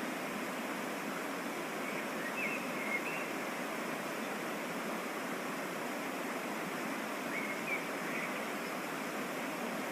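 Steady rushing of a small waterfall on a mountain stream, an even wash of falling water. A few faint, short high chirps come through about two to three seconds in and again near eight seconds.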